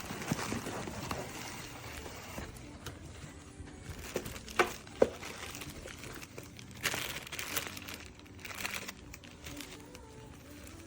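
Rustling and crinkling of something being handled, with a few sharp clicks about four to five seconds in and a couple of brief swishes later.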